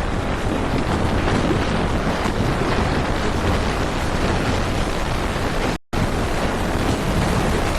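Fast-flowing floodwater rushing, a loud steady noise mixed with wind on the microphone. It cuts out abruptly for an instant about six seconds in, then resumes.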